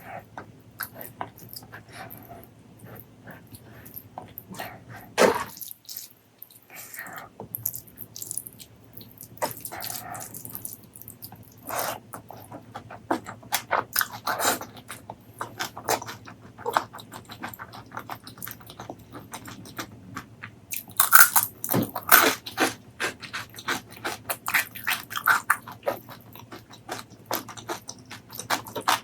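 Close-miked eating sounds: chewing, crunching and wet mouth clicks in irregular bursts, busiest about three quarters of the way through.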